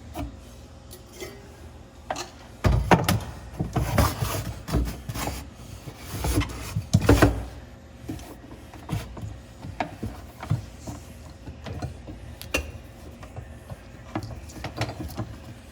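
Irregular knocks, scrapes and clicks of parts being handled while working on a gas stove, loudest about three seconds in and again around seven seconds.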